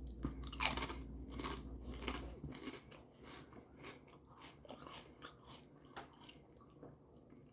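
Close-miked chewing of a hot dog in a bun: irregular wet mouth clicks, louder for the first couple of seconds and then fainter.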